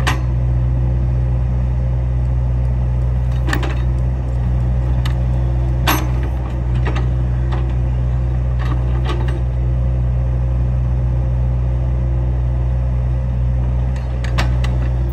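John Deere compact excavator's diesel engine running steadily under load while the bucket works dirt in a trench, with a handful of sharp metallic clanks from the bucket and boom.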